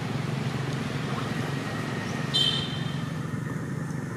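Steady low hum of distant road traffic, with one short high-pitched squeak about two and a half seconds in.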